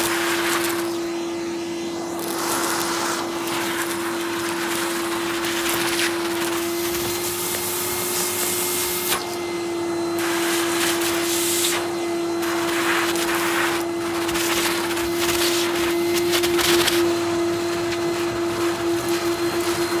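Numatic Henry cylinder vacuum cleaner running with a steady motor whine as its wand sucks crushed crisp crumbs out of a rug, the rush of air rising and falling as the nozzle moves over the pile. Near the end the whine takes on a fast flutter.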